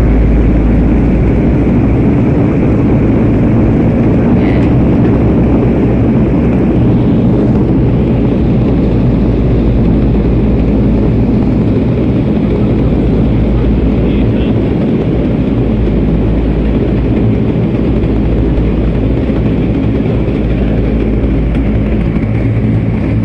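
Cabin noise of a Dash 8 Q400 turboprop: its Pratt & Whitney PW150A engines and six-blade propellers make a loud, steady drone with a low hum. It is a little louder at the start, then holds level.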